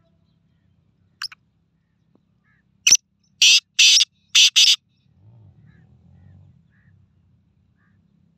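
Male black francolin calling: a short faint note, then a loud harsh phrase of four notes within about two seconds, the first short and the last three longer. A faint low rumble follows.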